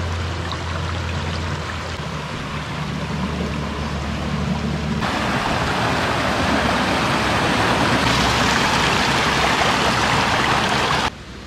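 Shallow woodland stream running over stones and gravel. About five seconds in it turns to a louder, brighter rush of water spilling between logs lying in the streambed, which cuts off suddenly near the end.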